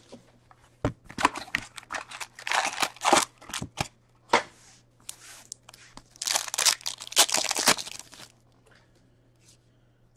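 Upper Deck Trilogy hockey card box and its foil packs being torn open by hand: irregular bursts of ripping and crinkling of cardboard and wrapper, with a sharp click about a second in.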